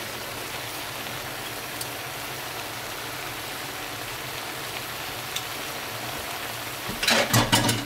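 Julienned radish sizzling and bubbling steadily in its own juices in a frying pan over high heat. A brief louder burst comes near the end.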